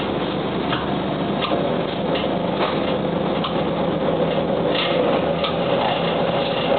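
Diesel engine of a 1998 UD KC-UA460LSN city bus idling while the bus stands, heard from inside the cabin, with scattered interior clicks and rattles. Another vehicle passes close by near the end.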